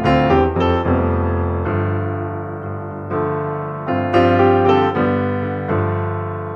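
Piano playing: notes and chords struck in small groups, each ringing and fading before the next.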